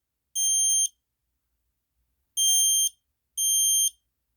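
Kidde i9010 battery-powered ionization smoke alarm sounding its test alarm: loud, high-pitched beeps in groups of three with a pause of about a second and a half between groups. Each beep lasts about half a second.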